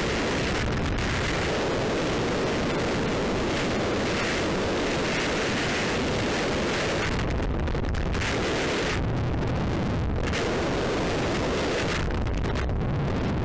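Rushing air of a skydiving freefall buffeting the camera's microphone: loud, steady wind noise whose high hiss drops away and returns a few times.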